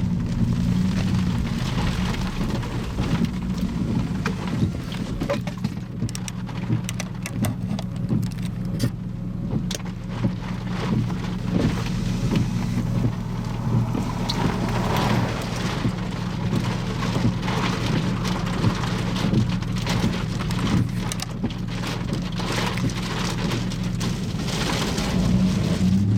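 Rain hitting a vehicle, many separate drop impacts over a steady low hum of engine and road noise.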